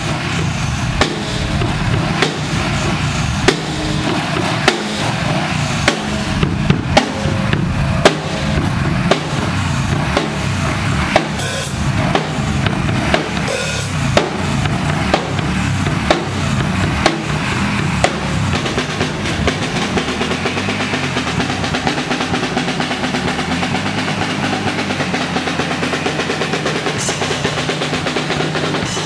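Mapex acoustic drum kit played live: a driving beat on kick drum and snare with tom fills and cymbal crashes.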